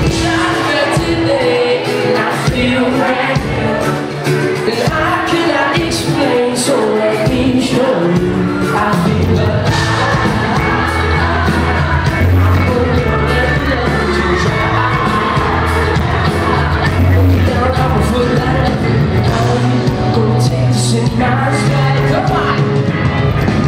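Pop-rock band playing live in a concert hall: sung vocals over electric guitars, drums and keys, with a heavy bass coming in about nine seconds in. Crowd noise runs beneath the music.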